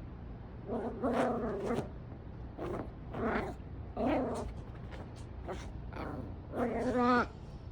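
Yorkie puppy growling and whining in four short wavering vocalizations, the last one with a trembling, quavering pitch.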